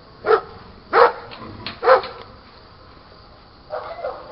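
A dog barking: three loud barks about a second apart, then two softer barks near the end.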